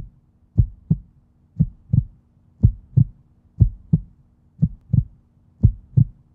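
Heartbeat sound effect: a low double thump, lub-dub, repeating about once a second over a faint steady hum.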